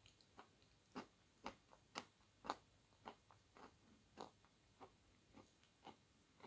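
A person chewing a mouthful of soup close to the microphone: soft, wet mouth clicks about twice a second.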